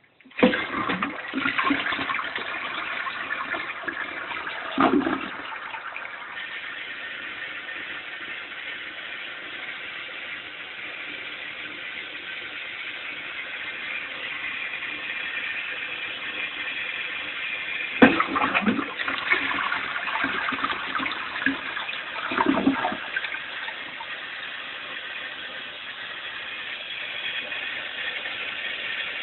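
A toilet is flushed, and water rushes and keeps running as the tank refills. About 18 seconds in there is a sharp click, then another surge of rushing water, as the toilet is flushed again. A few seconds after each flush there is a short lower gulp.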